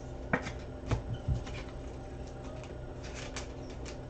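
Trading cards and their packaging handled on a desk: light rustling and clicking with a few sharp taps and knocks in the first second and a half, over a steady low hum.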